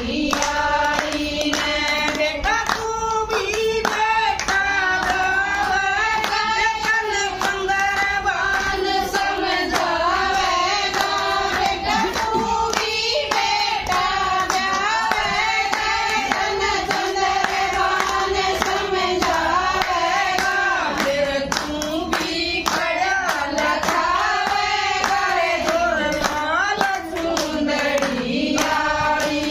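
A group of women singing a devotional song in unison, accompanied by steady rhythmic hand-clapping.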